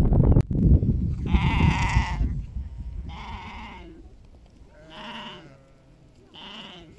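Bleating from the flock: four wavering calls, each under a second, spaced about a second and a half apart. Wind rumbles on the microphone through the first two seconds.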